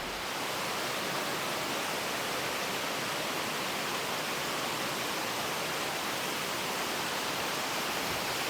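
Steady rushing of the Goa Tedes waterfalls, an even roar of falling water.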